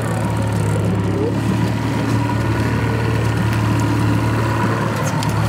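Boat's outboard motor running steadily at trolling speed, a constant low drone.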